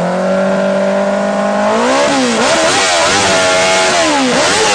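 Motorcycle engine revved hard while standing still: held at high revs for about two seconds, then blipped down and up several times in quick succession.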